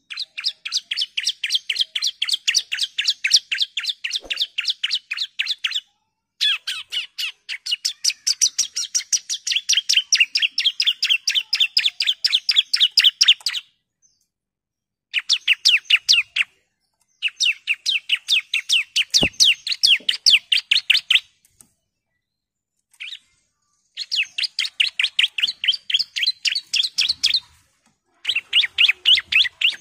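Bar-winged prinia (ciblek) singing long runs of rapid, evenly repeated chirping notes, in bursts lasting from a second or two up to about seven seconds with short pauses between them.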